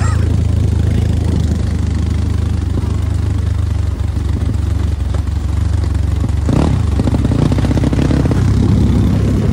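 Dirt bike engines running as the bikes ride over a rough gravel track, with a steady low engine hum; an engine revs up briefly about two-thirds of the way through.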